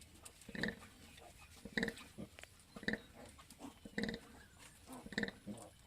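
Pigs, a sow with newborn piglets, making short grunts that repeat evenly about once a second as the piglets go to suckle.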